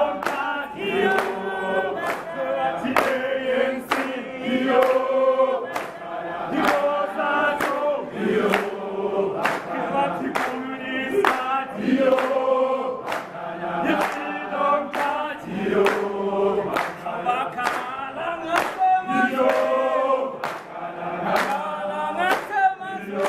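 A crowd of men and women singing together, with a steady beat of hand claps.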